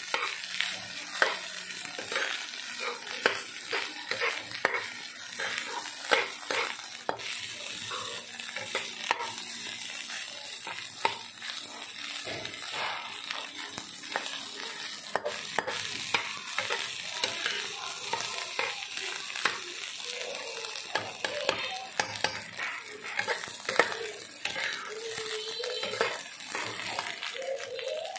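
Fried rice sizzling in a frying pan while a metal spoon stirs and scrapes through it, the spoon clicking repeatedly against the pan, most often in the first half.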